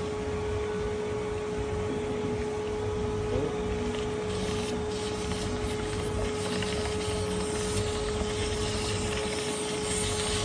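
Henry vacuum cleaner running with a steady whine, its hose taped onto the engine's oil filler cap to pull a vacuum on the crankcase so that no oil spills while the sump plug is undone.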